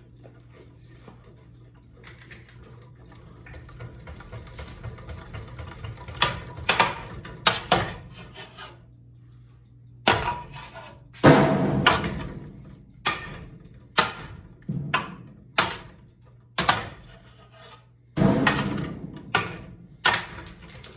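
A ceiling fan being smashed: a series of about a dozen sharp metallic bangs and crashes, each ringing briefly, coming irregularly and hardest near the middle. A steady low hum runs underneath.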